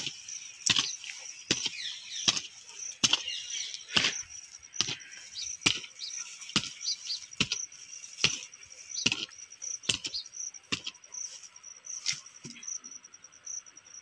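A short-handled hand hoe chopping into dry, grassy soil to dig a small hole, about sixteen strikes a little under a second apart, stopping shortly before the end. Crickets chirp steadily in the background.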